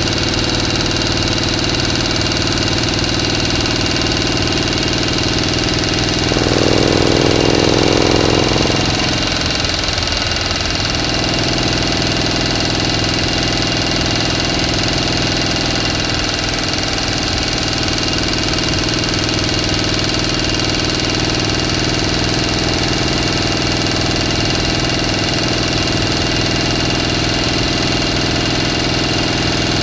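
A motor running steadily with a constant hum, getting louder for a couple of seconds about six seconds in before settling back.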